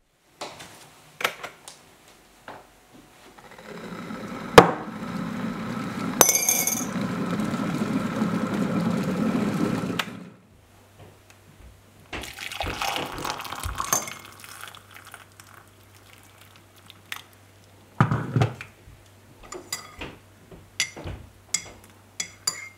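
Glass electric kettle coming to the boil, its rumble building for about six seconds and then stopping abruptly. Hot water is then poured into a ceramic mug, followed by a metal teaspoon stirring and clinking against the mug.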